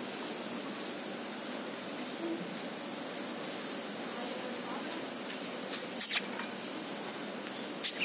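Insect chirping, a short high note repeated evenly about twice a second. Two sharp clicks cut in about six and eight seconds in.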